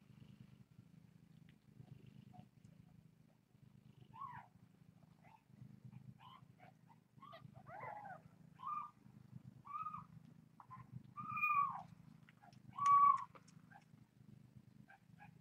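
A cat purring steadily, a low rhythmic rumble that swells and eases with each breath. Over it come short kitten mews, several in a row, the loudest two near the end.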